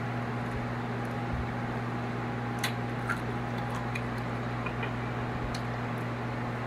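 Steady low electric hum of a small room fan running, with a few faint crunchy clicks of chewing a crispy breaded chicken wing.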